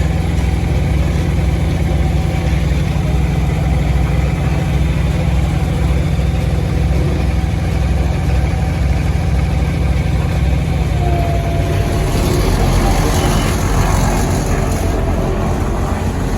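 Heavy engine of road-building machinery running steadily with a deep low drone; from about twelve seconds in a rougher, higher noise builds over it.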